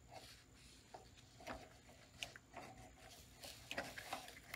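Faint, scattered light clicks and taps of metal parts as the wheeled motor unit of a Williams reproduction Lionel 381E standard gauge locomotive is pushed up into its metal body, more of them in the second half.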